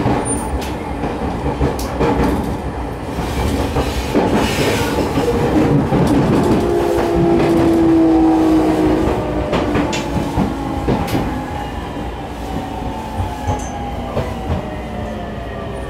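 JR 209 series 3100-subseries train with a GTO-VVVF inverter and MT73 traction motors, running under the car floor, with wheels clacking over rail joints. In the second half the inverter and motor whine falls steadily in pitch as the train slows.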